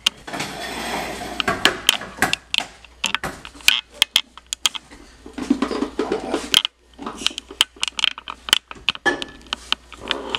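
Scattered knocks and clicks of a plastic cup and small hands on a laminate kitchen countertop, ending with a microwave door being pulled open.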